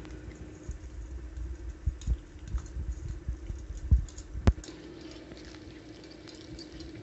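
Cats eating small fish off a steel plate: wet chewing with irregular clicks and knocks of teeth and plate, busiest in the middle and sharpest about four and a half seconds in, over a steady low hum.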